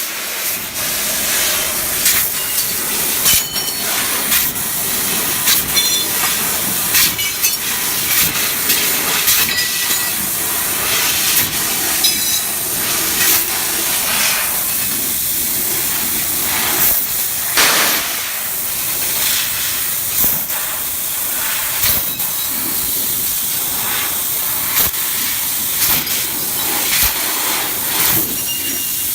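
CNC fiber laser cutting head cutting 1 mm stainless steel sheet at high speed: a steady loud hiss from the nozzle, broken by many short sharp cracks a few times a second as cuts start and stop.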